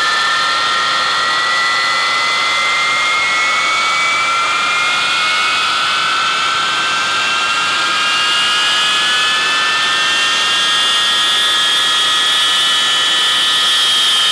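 Avro Vulcan's Olympus turbojets running loud, with several high turbine whines rising slowly in pitch together and levelling off near the end as the engines spool up.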